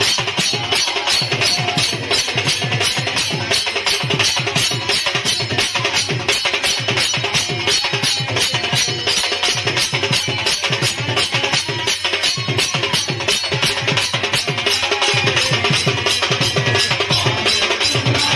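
Sambalpuri kirtan dance music led by drums and percussion, with sharp clicking strikes over heavy drum beats in a fast, steady rhythm.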